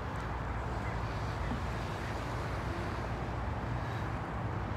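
Steady low rumble of street traffic and outdoor background noise.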